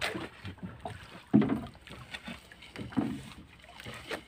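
Gill net being paid out by hand over the side of a small fishing boat: irregular rustles and knocks of the net and hands against the hull, with one sharper knock about a second and a half in.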